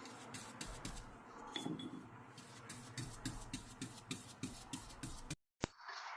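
Faint, irregular scraping strokes and light clicks of a coat of finish being applied to wood by hand. The sound cuts out suddenly about five seconds in.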